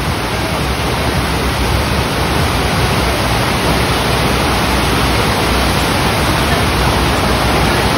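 Steady, loud rushing of water pumped up over a surf simulator's sheet wave, an even noise with no breaks.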